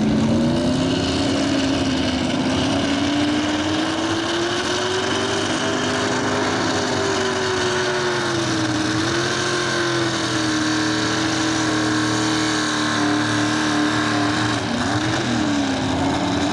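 Truck-pulling pickup's engine running hard at high revs: the pitch climbs over the first several seconds, holds high with small wavers, then dips and falls away near the end.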